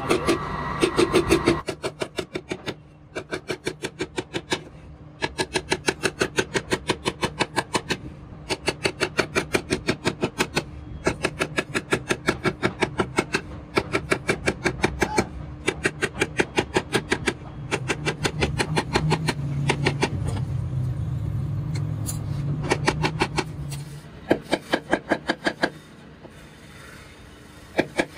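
Small hammer tapping brass wire into grooves in a wooden hotpot lid: quick light taps, about five a second, in runs with short pauses between them. A steady low hum sits underneath and grows stronger for a few seconds past the middle.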